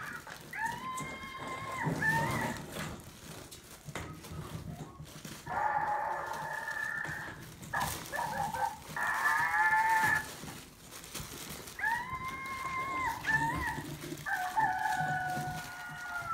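Maltese puppies whining: a series of drawn-out, high-pitched cries, each about one to two seconds long, one of them wavering.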